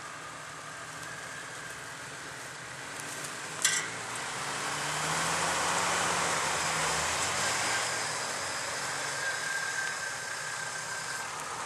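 Jeep Wrangler engine running at low revs while the Jeep crawls over rough off-road ground, getting louder in the middle as it works over the slope. A single sharp click sounds a little under four seconds in.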